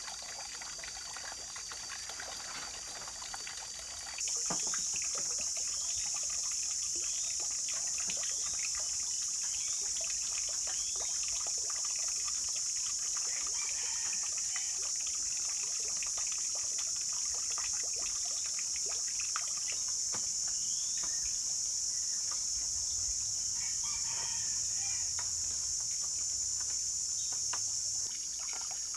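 A steady high-pitched insect chorus, stepping up about four seconds in and dropping back near the end, over scattered light knocks and taps of clay roof tiles and wooden poles being handled, with a few short bird chirps.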